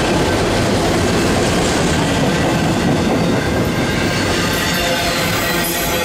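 Freight train's enclosed autorack cars rolling past close by: steady loud rumble and clatter of steel wheels on the rail, with a thin high wheel squeal creeping in near the end.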